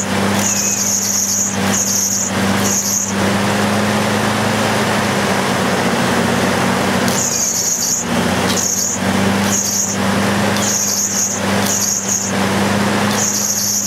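Arc welding on the Jeep transfer case: a steady crackling hiss over a constant electrical hum, with bursts of sharper hiss coming and going several times.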